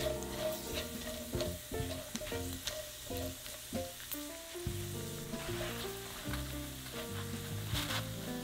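Diced guanciale frying in oil in a frying pan, sizzling with many quick crackling pops. Soft background music plays over it.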